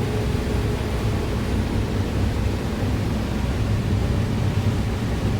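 Large farm machinery running steadily: a constant low engine rumble under a broad hiss of mechanical noise, with a faint steady tone fading out in the first second.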